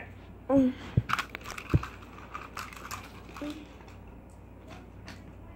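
A brief voice sound, then two soft thumps and a scatter of light clicks, settling into quiet room tone after about three seconds.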